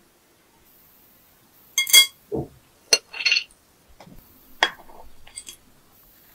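Dishes and utensils clinking and knocking, with no voice. The loudest is a ringing clink about two seconds in, followed at once by a dull thud. Sharp clicks come near three seconds and again near four and a half, and a lighter ringing clink comes near the end.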